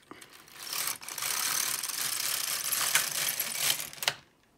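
Silver Reed LK150 mid-gauge knitting machine carriage being pushed along the needle bed to knit a row, a steady mechanical rattle of the latch needles with a few clicks. It stops sharply about four seconds in as the carriage reaches the end of the bed.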